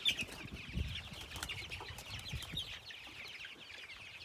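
A flock of young meat-chicken chicks peeping, many short high cheeps overlapping without a break, with a few low thumps from the feeders being handled.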